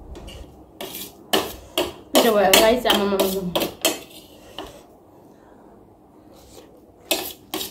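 Chopsticks and a metal spoon clinking and scraping on a steel plate as a boiled egg is broken up, a series of sharp clinks. About two seconds in, a drawn-out vocal sound that falls in pitch over about a second and a half is the loudest thing.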